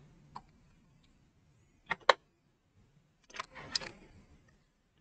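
Plastic clicks and rattles of a small wireless microphone transmitter being handled while its dead battery is swapped: a faint click, two sharp clicks about two seconds in, then a short cluster of clicks and rattling.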